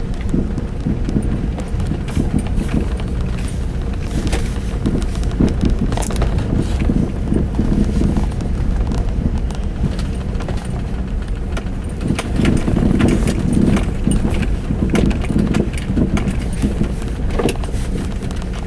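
Irregular knocking from the right side of a Mazda 6's front suspension, over a steady low rumble. It is a knock that a new strut silent block and upper ball joint have not cured, and disconnecting the reaction rod left it unchanged.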